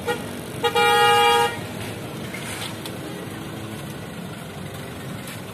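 A single-tone road-vehicle horn: two quick short toots, then a steady blast of nearly a second, over steady street traffic noise.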